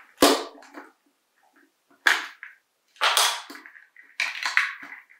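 Plastic clicks and knocks from a small toy RC stunt car being handled on a hard table: a knock at the start as it is set down, then sharp clicks and scrapes about two, three and four seconds in as its plastic body is worked at by hand.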